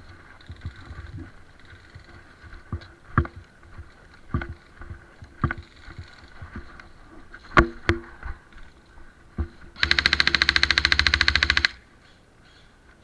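Airsoft guns firing: a handful of single sharp shots spread over several seconds, then a rapid full-auto burst lasting almost two seconds, the loudest sound here.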